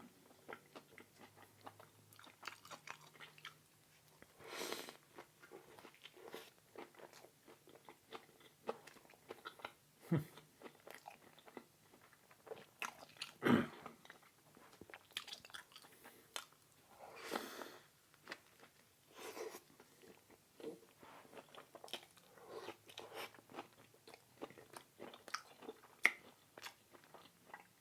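Close-miked chewing of a plant-based burger: a steady run of small wet smacks and clicks, with a few louder bites a few seconds apart.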